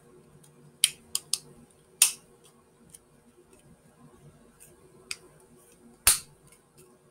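Small hard plastic clicks and taps as a 3D-printed insert is pressed into a 3D-printed mask body, a few scattered in the first two seconds and a sharper snap about six seconds in as the piece seats securely.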